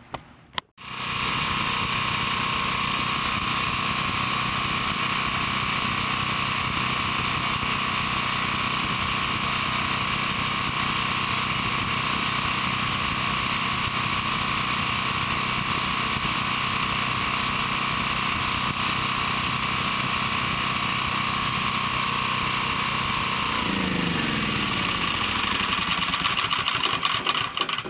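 A 7 kW portable generator's engine running steadily at governed speed under an output test. About 23 seconds in it shuts off and spins down, its pitch falling over the last few seconds.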